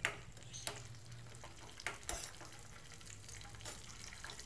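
Cashews and raisins frying in ghee in a small steel pan, with a faint sizzle, while a metal spoon stirs them, knocking and scraping against the pan in scattered sharp clicks, the loudest right at the start.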